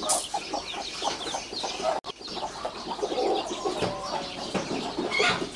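A Thai fighting-breed hen clucking in quick repeated notes while her young chicks peep, high and constant, around her. A brief hiss of dry feed being poured onto the dirt comes right at the start, and the sound drops out for an instant about two seconds in.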